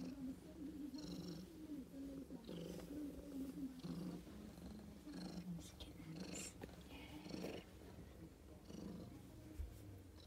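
Siamese mother cat purring steadily while being stroked.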